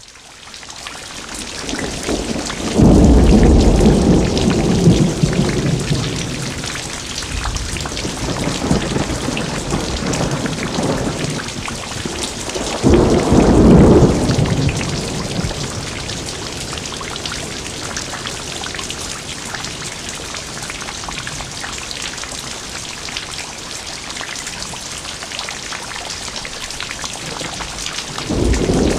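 Steady rain hissing during a thunderstorm, swelling up in the first couple of seconds. A long low thunder rumble comes about three seconds in, a shorter one around thirteen seconds, and another begins just before the end.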